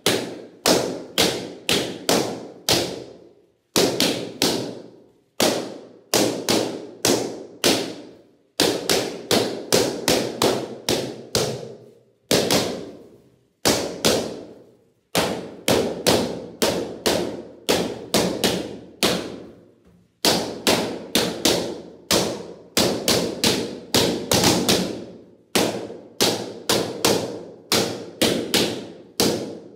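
Latex party balloons bursting one after another as they are stabbed with a sword: sharp loud pops in quick runs of about two to three a second, broken by short pauses, each pop trailing a brief echo.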